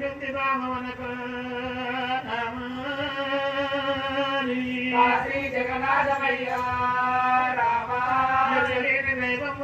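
Oggu Katha folk singers chanting a sung refrain, holding long, steady notes that break and change pitch every second or two.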